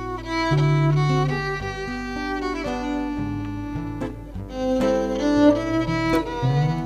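Violin playing a melody over a classical guitar accompaniment, the violin's held notes sliding from one to the next.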